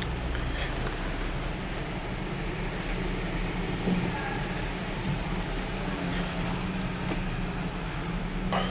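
A vehicle's engine running with a steady low hum under road and cabin noise, heard from inside the cabin while driving.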